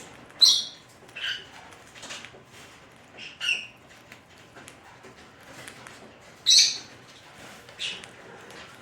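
Pet parrot giving short, sharp squawks, about six in a row with pauses between them, two of them much louder than the rest.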